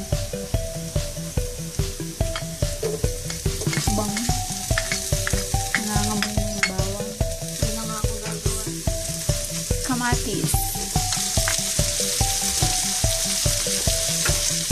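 Onion, garlic and ginger sizzling as they are sautéed in hot oil in a pan, the sizzle growing louder about ten seconds in. Background music with a steady beat runs underneath.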